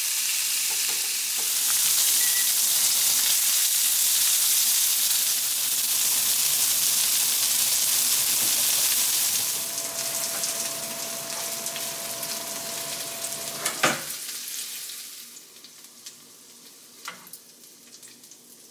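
Pork belly sizzling in a frying pan, loud for about the first ten seconds, then easing and dying away over the last few seconds. A single sharp knock comes about fourteen seconds in, and a few light knocks follow near the end.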